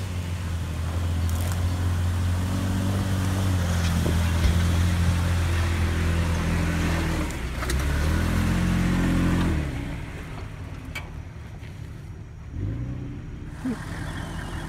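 Toyota Tacoma pickup's engine pulling steadily under load as it climbs a rutted dirt trail. About halfway through the revs dip and climb again. After about ten seconds it drops away quieter.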